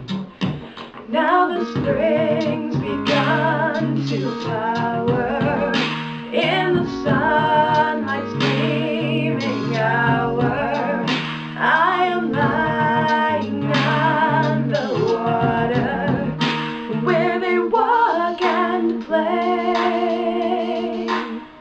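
A woman singing solo with vibrato, over instrumental backing with steady low notes and an added harmony vocal.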